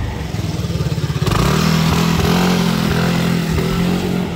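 Motor scooter riding close past, its small engine puttering with fast pulses and then settling into a steady drone about a second in.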